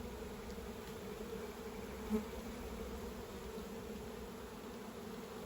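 Honey bees buzzing in a steady hum, with one brief louder spike about two seconds in.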